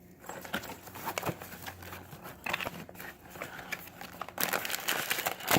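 Blind-box packaging being handled: light crinkling and rustling of the box and its bag, with a louder stretch of crinkling about four and a half seconds in.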